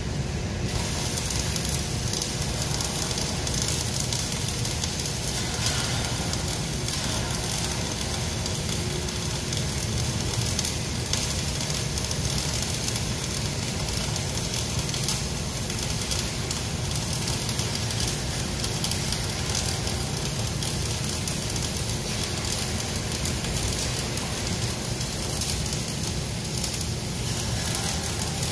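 Electric arc welding on steel. The arc strikes about a second in and then burns continuously with a steady, dense crackle over a low hum.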